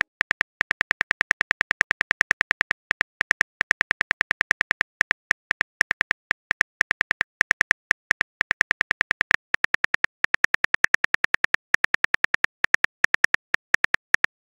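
Phone keyboard key-click sounds tapping out a message, rapid clicks several a second with brief pauses between bursts.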